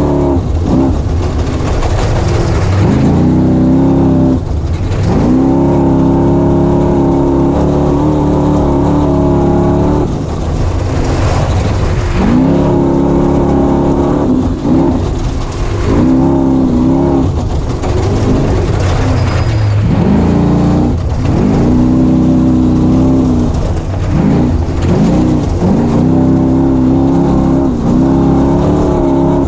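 Onboard sound of an off-road race vehicle's engine at full throttle. The revs hold high for several seconds at a time, dip briefly as the throttle lifts or a gear changes, then climb again, over a steady low rumble.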